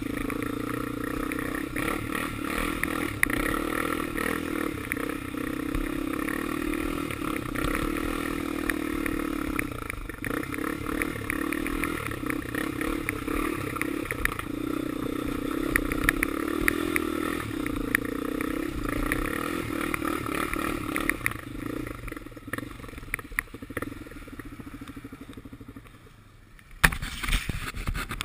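Honda 400EX ATV's single-cylinder four-stroke engine running as the quad is ridden over rough, snowy ground, its pitch rising and falling with the throttle, with scattered knocks and clatter. Near the end it eases off and goes much quieter for a few seconds, then comes back with a sharp knock.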